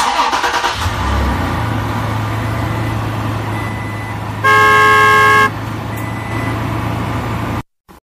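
Dubbed vehicle engine sound effect running steadily, with a single horn blast about a second long midway through. It starts and cuts off abruptly.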